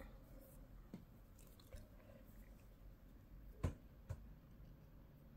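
Near silence with faint handling noises as a crochet hook and yarn are picked up off a table and the yarn is looped over a finger: a few soft clicks, then a louder knock about three and a half seconds in and a smaller one half a second later.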